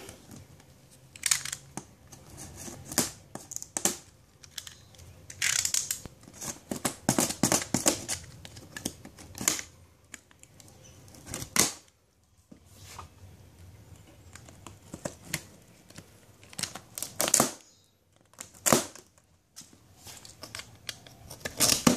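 Utility knife slicing through packing tape and cardboard along a box's seams: irregular scraping strokes, each a second or so long, with short clicks and pauses between them.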